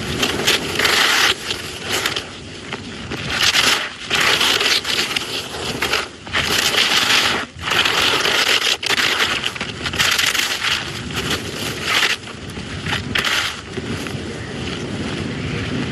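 Giant slalom skis carving turns down a snow-covered race course: a noisy scrape of the ski edges on the snow that surges with each turn, about once every second or so, with brief dips between turns.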